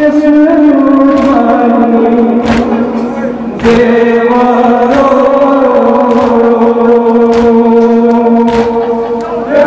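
Male voices chanting a mourning lament (nauha) in long, slowly shifting held notes. Sharp slaps of hands on chests (matam) land about once a second.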